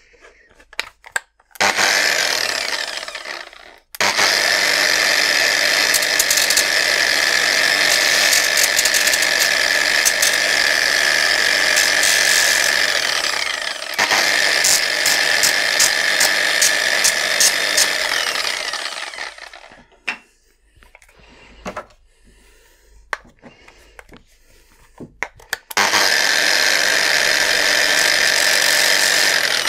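Angle grinder fitted with a sandpaper backing pad, running at speed and sanding the edges of a 3D-printed plastic part to take off the ridge left by printing. It steady-whines, is switched off and on, winds down with falling pitch between runs, and starts again after a pause of a few seconds near the end.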